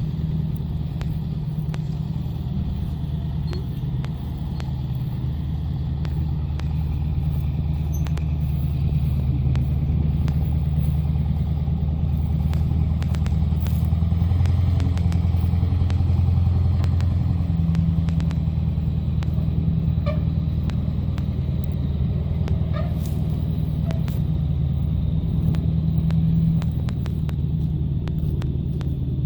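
Ford 7.3 Power Stroke turbo-diesel V8 truck driving loaded with firewood, its engine a steady low drone that swells a little about halfway through, with a faint high turbo whistle and light rattles.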